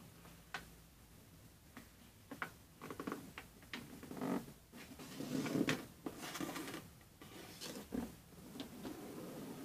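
Sheet of 80 g/m² A4 paper being folded and smoothed by hand: irregular rustling and crinkling with sharp little clicks and taps, busiest about halfway through.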